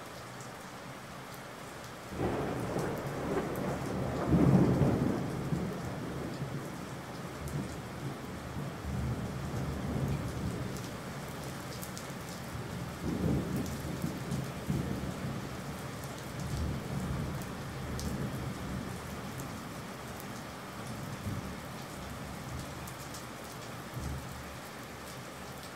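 Steady rain with a long roll of thunder that breaks in suddenly about two seconds in, is loudest a couple of seconds later, swells again about halfway through and then rumbles away.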